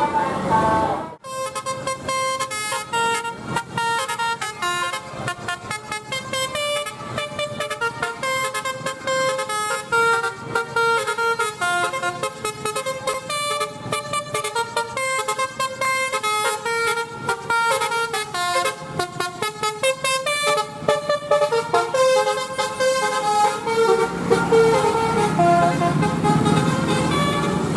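A bus's basuri (telolet) melodic air horn plays a long tune of quick, changing notes. About 24 seconds in, a low engine rumble grows louder under it.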